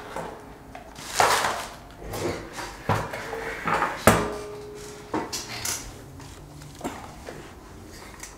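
A series of knocks and clatters of hard equipment being handled and set down on a workbench as a bench power supply and its test leads are set up.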